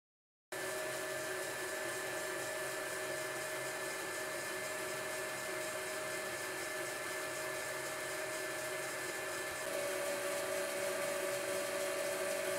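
Myford lathe running steadily at about 640 rpm, a constant mechanical hum with a whine that starts abruptly about half a second in. About ten seconds in, the whine steps slightly higher and gets a little louder.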